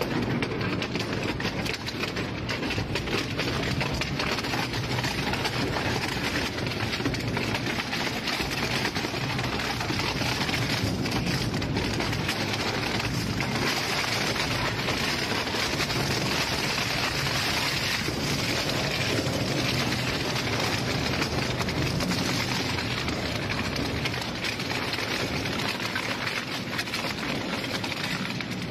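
Industrial shredder crushing material: a dense, steady crackling and crunching with a low rumble underneath.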